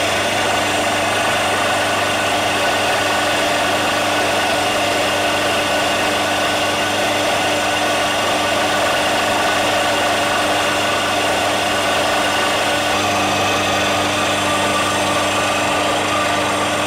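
HS-850 electric burr coffee grinder running steadily as it grinds roasted coffee beans, with a constant motor hum under the grinding. It is set to its finest grind with the burrs close together, which gives a rougher grinding sound.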